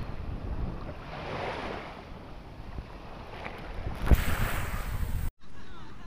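Wind noise on the microphone over small waves washing in shallow water, with a louder rush of hiss about four seconds in that cuts off abruptly just after five seconds.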